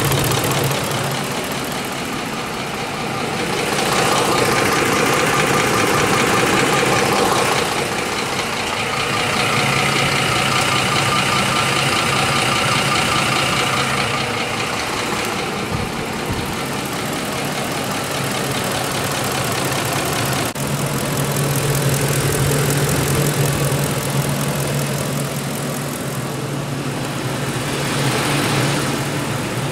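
Ford 5.4-litre three-valve Triton V8 idling, heard up close from the engine bay and from under the truck, its tone and loudness shifting as the microphone moves around it.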